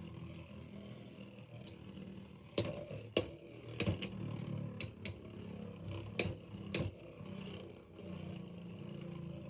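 Two Beyblade X tops, Wizard Rod one of them, spinning in a plastic stadium with a steady whirring hum. From about two and a half seconds in come several sharp clacks as they strike each other and the stadium rail.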